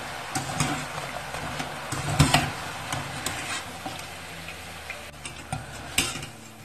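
Rolled yufka pastries sizzling as they deep-fry in hot oil in a stainless steel pot, while a wire mesh skimmer stirs them and scoops them out, clicking and scraping against the pot. The sharpest knocks come about two seconds in and near the end, and the sizzle grows fainter in the second half.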